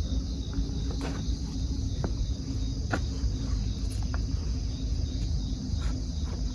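A steady, unbroken insect chorus of crickets chirring, over a low rumble with a few faint clicks.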